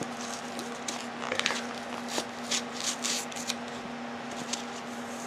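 A GoPro cardboard packaging box being picked at and torn by hand, heard as scratches, small clicks and a few short tearing rasps, the biggest cluster a little past the middle. A steady low hum runs underneath.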